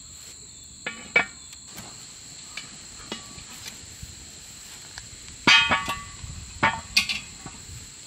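Cast-iron Dutch oven and lid clanking as they are handled: a few metal knocks with a short ring, the loudest about five and a half seconds in. Insects trill steadily throughout.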